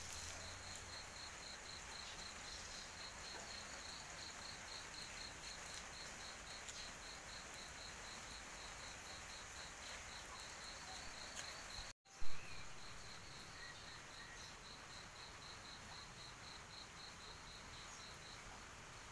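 An insect chirping in a steady high pulse, about three to four chirps a second, over a steady high hiss. About twelve seconds in, the sound drops out for a moment and a short loud thump follows.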